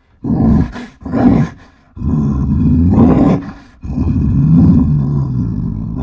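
Animal-style roar sound effects: two short growling roars, then two long drawn-out roars.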